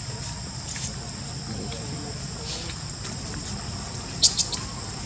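Steady high-pitched insect drone, with a quick run of three or four sharp high chirps about four seconds in, the loudest moment.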